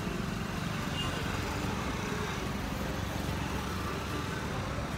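A vehicle engine running steadily amid street traffic noise.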